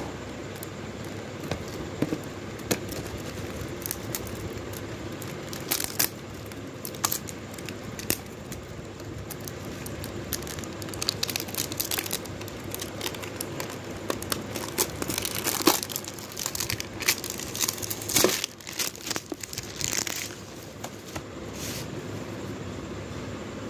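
Cardboard smartwatch box being handled and its seal picked at and opened: scattered crinkling, scraping and sharp clicks, busiest in the middle stretch, over a steady low hum.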